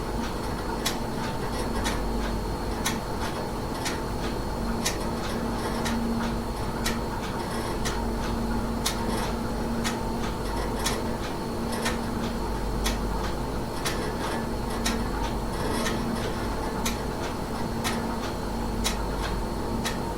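A clock ticking about once a second over the steady low buzz of a refrigerator running.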